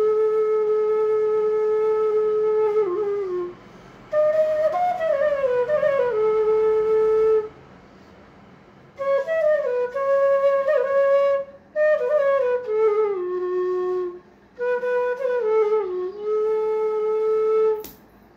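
Bamboo bansuri flute playing a slow melody in phrases of long held notes and downward slides, separated by short pauses. A sharp click near the end.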